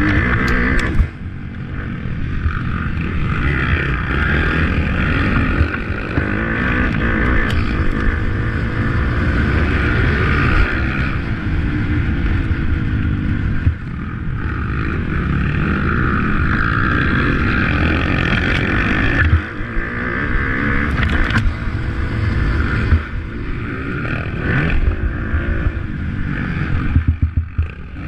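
Motocross bike engines running hard at high revs during a race, with brief drops in loudness as the throttle is let off, about a second in and again a few times later.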